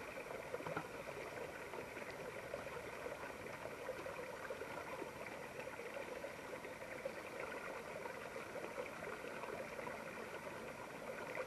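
Faint, steady outdoor background hiss with no distinct events.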